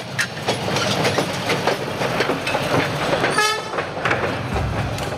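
Train running on rails, its wheels clattering over the rail joints, with a short high toot about three and a half seconds in.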